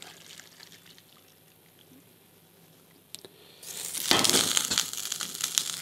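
Hot oil sizzling in an emptied frying pan. A loud hiss starts suddenly about three and a half seconds in, just after a single click, and keeps going.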